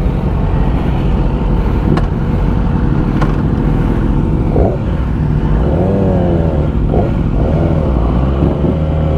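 Motorcycle engines running, with revs rising and falling midway through.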